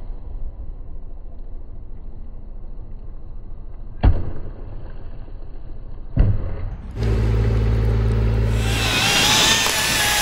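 A low engine rumble with two sharp knocks about four and six seconds in. From about seven seconds a louder engine runs with a wavering, rising and falling whine.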